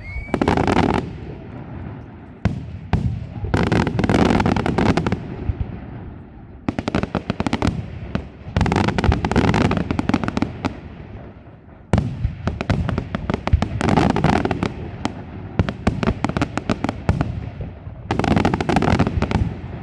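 Fireworks display: rapid volleys of shell bursts and crackling, coming in several waves of loud salvos with short, quieter lulls between them.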